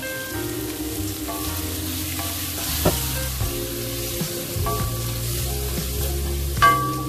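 Long beans, shallots, chilli and egg sizzling as they are stir-fried in a stainless-steel pan, a wooden spatula scraping through them and knocking sharply against the pan twice, about three seconds in and near the end. Background music plays underneath.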